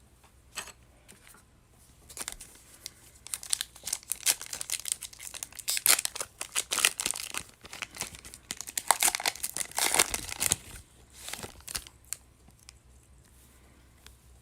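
Foil wrapper of a pack of football trading cards crinkling and being torn open by hand, in irregular bursts of rustling over about ten seconds.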